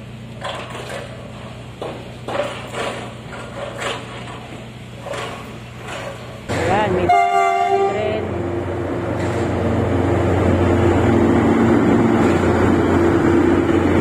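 Scattered knocking and clatter of an excavator breaking up a concrete building. About seven seconds in, a PNR CC300 diesel-hydraulic locomotive sounds one horn blast of about a second. Its engine then runs loud and steady, growing louder as the train comes up and passes.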